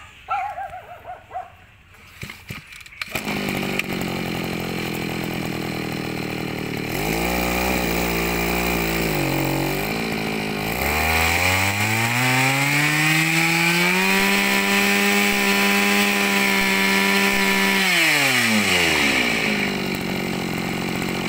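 Mitsubishi 23 cc two-stroke brush cutter engine catching about three seconds in and idling, briefly blipped, then opened up in a rising whine to high revs, held there for several seconds, and dropped back to idle near the end.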